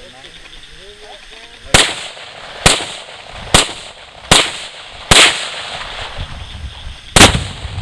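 Six shots from an AK-pattern rifle fired one at a time, five a little under a second apart and a sixth, the loudest, about two seconds later.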